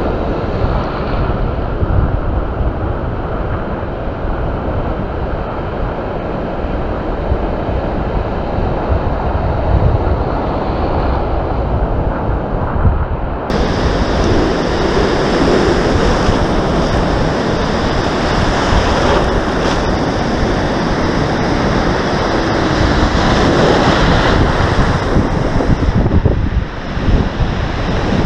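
Small surf breaking and foam washing through the shallows, with wind buffeting the microphone. About halfway through, the sound turns suddenly brighter and hissier.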